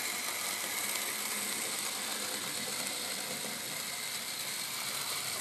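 A 1979 N scale Union Pacific gas turbine model locomotive running on DC power: a steady, even mechanical whir and rattle from its small motor, gears and wheels on the track.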